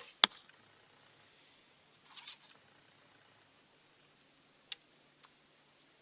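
An arrow from a 35-pound Slick Stick bow thuds into a bag target a quarter second after the loud bowstring release, the sharpest sound here. About two seconds later there is a brief rustle, then two faint clicks.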